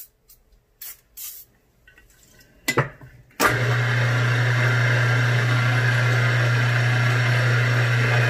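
Small milling machine's spindle motor switched on about three and a half seconds in, then running steadily with a low hum, turned slow for reaming a 4 mm hole in steel. Before it starts, a few short squirts and clicks as oil is put on the part.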